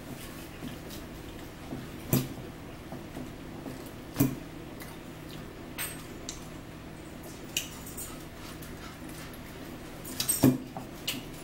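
Eating sounds: a fork clinking in a salad bowl, and chewing. There are a few sharp clicks about two and four seconds in and a louder cluster near the end, over a steady low hum.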